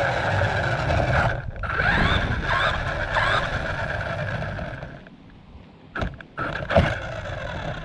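Radio-controlled car's motor whining as it drives, its pitch gliding up and down as it speeds up and slows about two to three seconds in, then dropping away near five seconds. Two sharp knocks follow about six and seven seconds in, the second the loudest.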